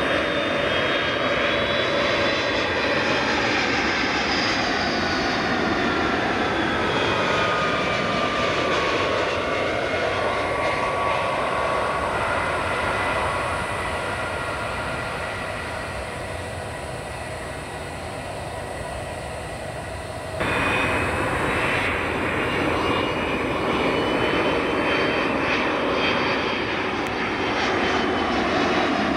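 Boeing 757 jet airliner landing, its engine noise and whine falling in pitch as it passes and then easing. About two-thirds of the way in, the sound changes abruptly to an Airbus A330 airliner passing low overhead on final approach, with loud jet engine noise and whine.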